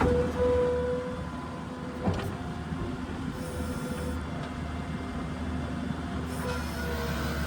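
New Holland skid steer's diesel engine running steadily, with a whine that comes and goes over it and a single knock about two seconds in.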